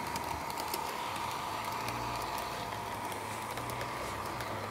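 Model train running: the electric motor of a model DB V 200 diesel locomotive whines steadily as it hauls its coaches, with scattered light clicks from the wheels over the rail joints.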